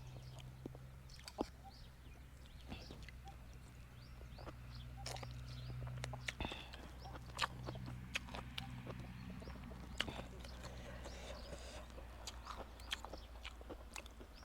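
A person chewing a spicy salad close to the microphone: irregular wet smacks and crunchy clicks, with no words between mouthfuls.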